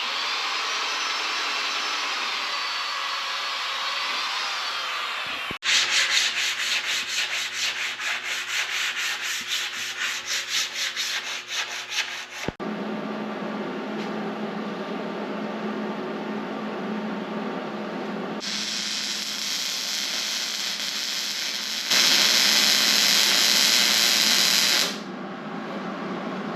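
Metalworking noise in three cut-together stretches. First a steady grinding hiss with a wavering whine. Then a pulsing rasp about four times a second. Then a steady frying hiss with a low hum from a 110-volt welder, which gets much louder for a few seconds near the end.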